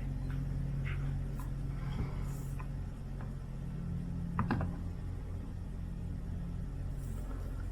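Scattered small clicks and taps of hands handling drone parts and repair materials, with a short cluster of clicks about halfway, over a steady low hum.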